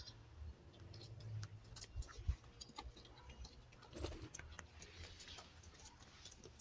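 Faint, scattered light clicks and taps: a small Maltese dog's claws on a plastic-covered tabletop as it moves about.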